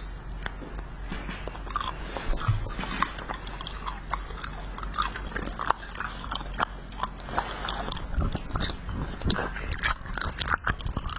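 Chewing and biting on a wax candy bottle: many irregular, sharp clicks and crackles of the wax, coming thicker near the end.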